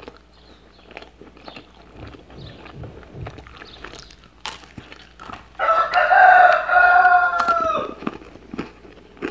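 Soft chewing and mouth clicks of someone eating, then, a little past halfway, a rooster crows once: one long call of about two seconds that drops in pitch at the end and is far louder than the eating.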